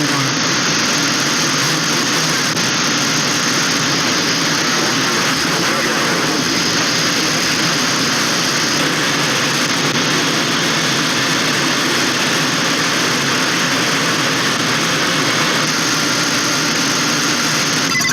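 Steady radio static hiss from a USB DVB-T tuner stick used as a software-defined radio, tuned to the 28 MHz (10-metre) band, with no clear Morse keying standing out of the noise.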